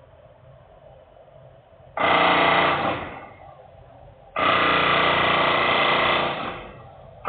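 Loud industrial machinery noise coming in bursts that start suddenly and fade out: a short rattling, buzzing burst about two seconds in, a longer one of about two seconds near the middle, and another starting at the end.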